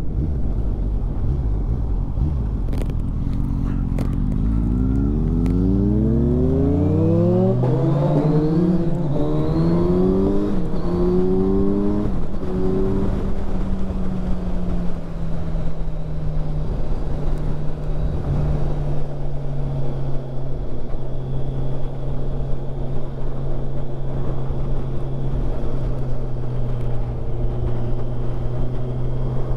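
Kawasaki Ninja 1000SX inline-four engine pulling hard up through the gears. Its pitch rises in several sweeps, with a drop at each gear change, over the first dozen seconds, then holds steady at cruising speed. Wind rushes over the helmet microphone throughout.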